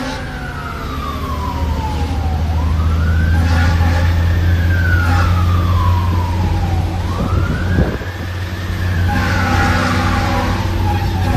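Fire engine siren wailing in slow sweeps, each rising and then falling back, about every four and a half seconds. Heard from inside the cab over the steady low drone of the truck's Detroit Diesel 60 Series engine.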